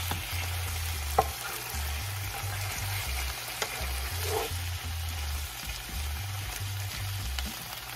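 Tofu, onion and garlic sizzling in hot oil in a nonstick frying pan while a spatula stirs them, with a few sharp clicks of the spatula against the pan. A low bass line of background music runs underneath.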